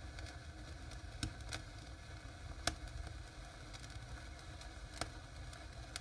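Small fountain fireworks burning in a fireplace: a steady faint hiss with scattered crackles and a few sharp pops, the loudest a little before halfway.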